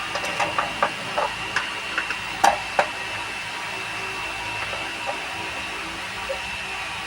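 Sharp plastic clicks and knocks from a set-top box's casing being worked open, a quick run of them in the first three seconds with the loudest about two and a half seconds in, over a steady hiss with a faint high whine.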